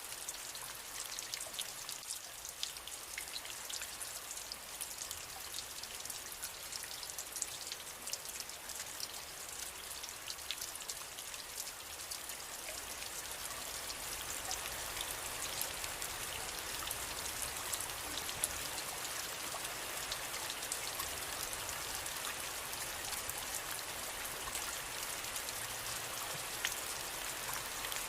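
Steady rain falling, with many individual drops ticking sharply against a surface; it grows slightly heavier about halfway through.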